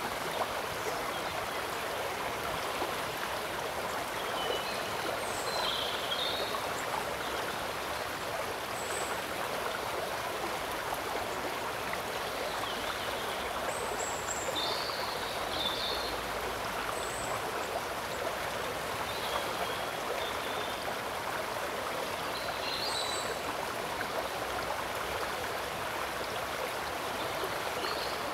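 Steady rushing of running water, even and unbroken. Short high chirps come through over it every few seconds.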